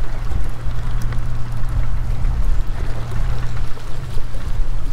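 Wind buffeting the microphone with a heavy low rumble, over small waves splashing and lapping against granite seawall rocks, and a steady low hum underneath.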